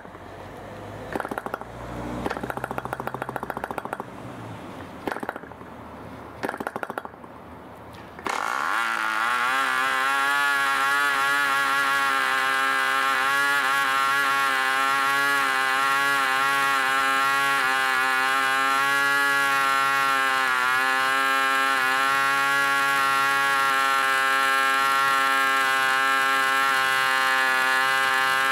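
D-C Tornado Twin, a 5cc twin-cylinder boxer glow engine, being hand-flicked and firing in short irregular bursts. About eight seconds in it catches, quickly picks up speed and then runs steadily at high revs, turning an 11x6 propeller.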